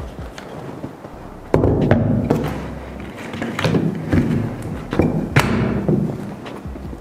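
Knocks and thumps from handling the metal barrel-and-action of a pump air rifle and setting it down against its wooden stock on a table: a sharp knock about one and a half seconds in, then several more.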